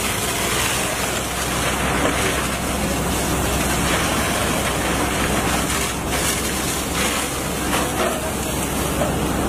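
Steady hiss of a fire hose jet spraying water onto a burning bus, over the low, even running of an engine underneath.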